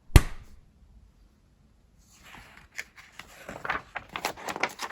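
A single sharp snap just after the start, the crocodile-jaws snap sound effect, then from about two seconds in a run of rustling and quick clicks.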